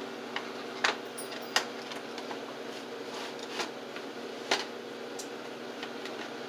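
Tongs knocking against a metal baking pan and roasted beef soup bones as the bones are turned over: a handful of short, sharp clacks over a steady hum.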